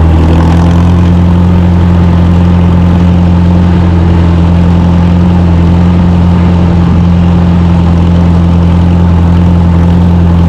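Tractor engine running loud and steady at a constant speed, with no change in pitch.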